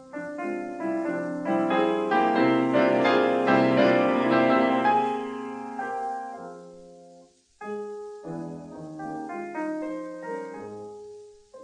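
Background piano music: a run of ringing notes that swells to its loudest about three seconds in, fades away and breaks off just after seven seconds, then starts again more softly.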